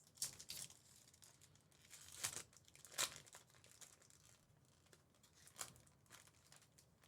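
Foil trading-card pack wrappers being torn open and crinkled, in a few short faint bursts.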